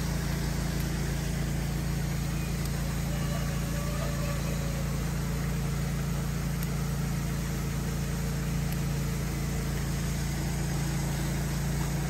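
A steady low engine-like hum running at a constant speed, under an even hiss.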